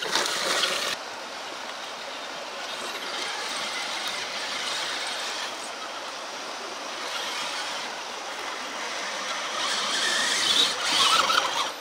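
Electric motor and gear drivetrain of a radio-controlled crawler truck running as it drives over dirt: a steady whirring hiss with no clear pitch, a little louder near the end.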